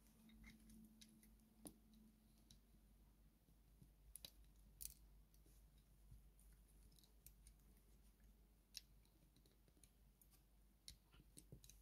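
Faint, scattered clicks of plastic Lego bricks being handled and pressed onto a model, with several close together near the end, over near silence.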